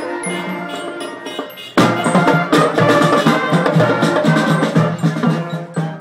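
Marching band playing, brass and saxophones carrying the tune. About two seconds in it suddenly gets louder, with drums beating under the brass.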